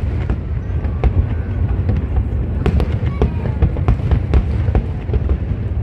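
Aerial fireworks shells bursting: a continuous low rumble of booms, broken by many sharp pops and crackles.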